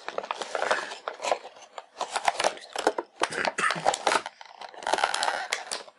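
Clear plastic packaging crinkling and crackling as hands work headphones out of it, in irregular rustles with a few short pauses.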